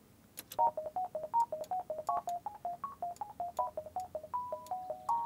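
Hercules software synth playing a quick melody on a pure sine-wave 'bell' patch: short beeping notes, sometimes two at once, each starting with a click, sounding like a phone ringtone. It is a sine-wave attempt at a bell that does not come out bell-like. About four seconds in, the notes start to ring on longer and overlap.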